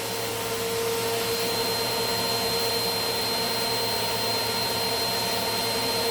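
Eureka AirSpeed Plus compact vacuum cleaner running steadily: rushing airflow under a constant motor whine, with a faint high whistle above it.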